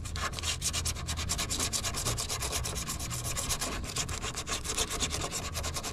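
80-grit sanding disc rubbed by hand over a fibreglass bumper in rapid back-and-forth strokes, sanding down a small marked raised spot in the gelcoat.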